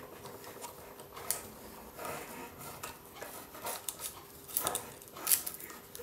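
Quiet handling sounds of wires being pulled out through an R/C helicopter's carbon fibre tail boom tube: scattered light rustles and small clicks, a few seconds apart.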